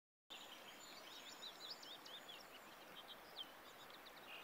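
Faint birdsong: many quick chirps and short wavering whistles over a soft hiss, starting after a brief moment of silence.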